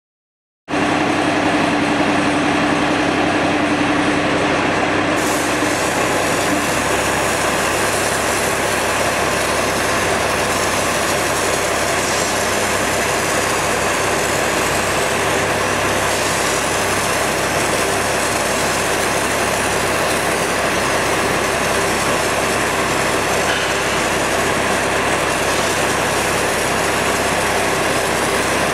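Loud, steady heavy-machinery noise with a hiss, starting abruptly about a second in. A steady hum underneath stops about six seconds in.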